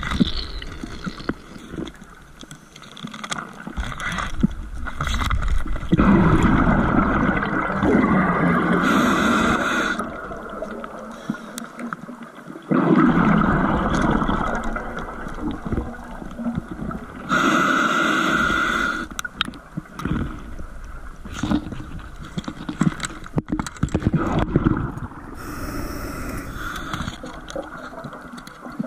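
Underwater breathing through a scuba regulator: long stretches of exhaled bubbles gurgling, with shorter, higher inhale hisses between them, repeating every several seconds.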